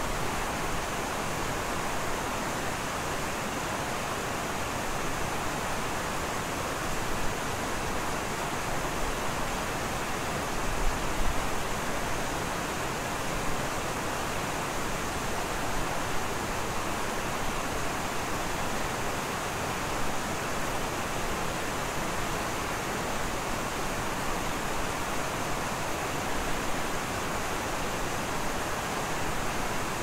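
Waterfall pouring into a pool: a steady, even rushing of falling water. A few brief low bumps rise above it near the middle.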